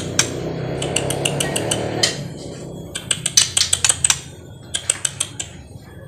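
Albino white-rumped shama (murai batu) giving runs of sharp, rapid clicking calls, several a second, in bursts. A low rumble lies under the first two seconds.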